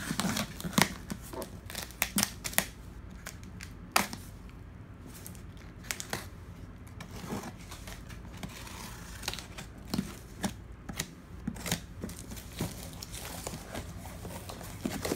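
A utility knife slitting the packing tape and cardboard of a parcel: irregular scraping cuts and sharp clicks. Near the end the cardboard flaps are pulled open with rustling.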